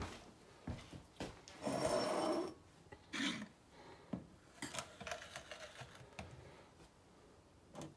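Faint scattered clicks and knocks of kitchen handling, with a short rustle about two seconds in.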